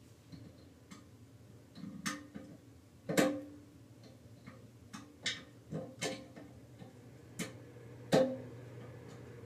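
A wrench knocking and clinking against the toilet's fill-valve fittings as it is worked: about seven sharp knocks, each with a short ring, the loudest about three seconds in and near the end.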